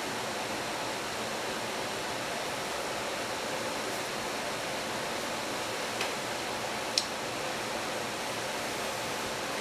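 Steady, even hiss with two small clicks, the second sharper and louder, about six and seven seconds in.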